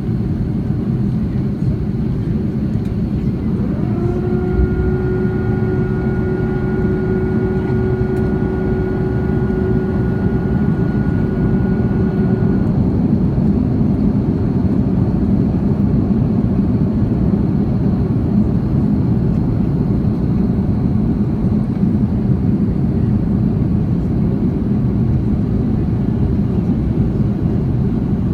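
Cabin noise inside an Airbus A330-300 airliner in flight: a steady low rumble of engines and airflow. About four seconds in, a whine rises in pitch, holds steady for roughly nine seconds, then stops.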